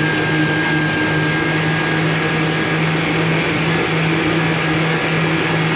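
Yamaha VX110 WaveRunner's four-stroke engine running steadily under load while held in a water tank, with its jet pump churning the water. It is remarkably quiet for a personal watercraft.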